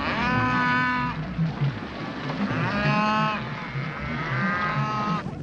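A herd of cattle bellowing in distress: several long moos one after another, each rising at the start and then held, over a low rumble.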